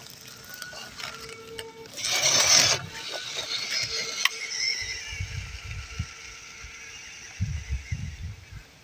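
MN99S 1/12-scale RC crawler's small 260 brushed motor and geartrain running as it drives, with tyres crunching over dry grass and leaves. A louder rushing noise comes about two seconds in, and low thumps later on.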